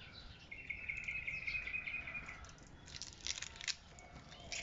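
A small animal's high, even trill, lasting about two seconds, then a short cluster of light plastic clicks and rattles about three seconds in as an LED fender side-marker lamp and its wire connector are handled.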